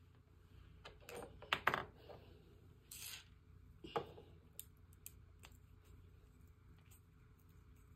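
A handful of light clicks and taps, as of small hard objects being handled, bunched in the first two seconds, with a short rustle about three seconds in and another click about four seconds in, over a faint steady hum.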